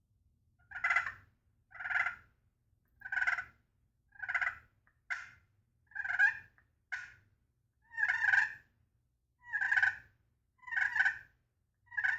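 Turkey friction pot call played with a striker, giving a slow run of about eleven loud yelps, roughly one a second, each note breaking from a higher to a lower pitch.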